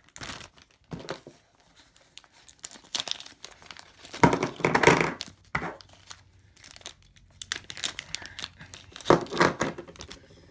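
Thin plastic bags crinkling and being torn open in a few short bursts, loudest about four seconds in and again near the end, with light knocks as small poured silver pieces are set down on a wooden table.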